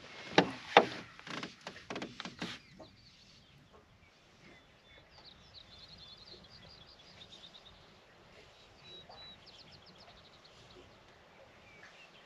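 A few loud knocks in the first two seconds or so, then faint bird calls: quick runs of short, high chirps repeated several times, over quiet lakeside ambience.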